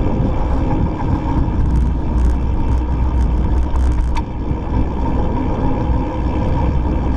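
Steady rush of wind and rolling noise from a mountain bike being ridden, with a continuous hum under it, a few faint ticks in the middle and one sharper tick about four seconds in.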